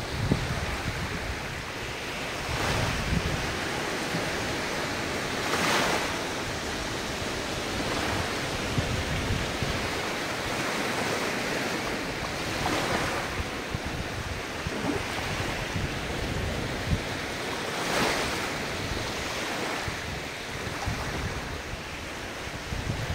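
Ocean waves washing on the shore, a steady hiss of surf that swells with each breaking wave every few seconds. Wind buffets the microphone with a low rumble.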